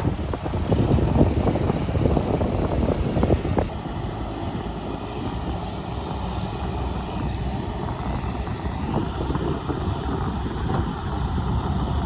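Diesel engine of heavy earthmoving machinery running, with knocks and clatter through the first three and a half seconds, then a steadier drone.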